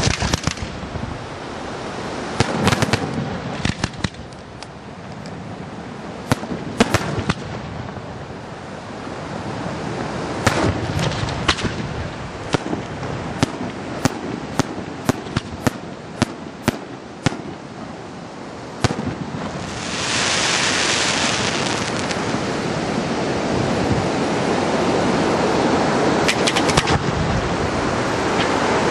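Aerial fireworks going off: a string of sharp bangs from bursting shells, coming in quick succession between about 13 and 18 seconds in, over a steady rushing background noise. About twenty seconds in a loud hiss swells up and lasts a couple of seconds.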